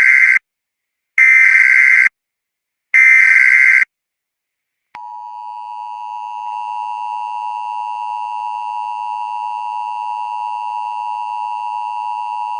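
Emergency Alert System signal: three burst transmissions of SAME header data, each a harsh digital warble about a second long, announcing a new alert. About five seconds in, the steady two-tone EAS attention signal begins and holds.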